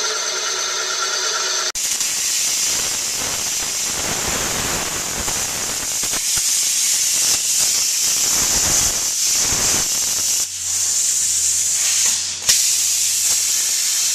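A loud, steady hiss that starts abruptly about two seconds in and changes about ten and a half seconds in, when a low steady hum joins it.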